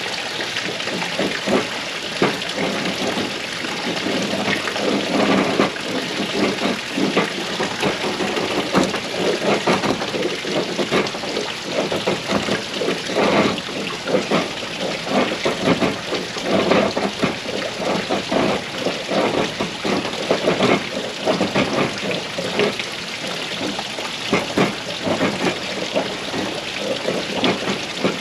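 Knife blade shaving thin curls off a wooden stick to make a feather stick: repeated irregular scraping strokes, over a steady hiss.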